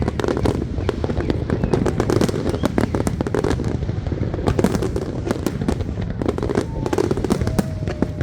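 Fireworks display: a dense, continuous run of bangs and crackles, many shells bursting in quick succession over a steady low rumble.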